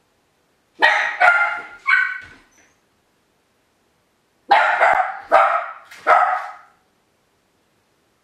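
Miniature pinscher barking in two runs of three barks, a couple of seconds apart, while left home alone.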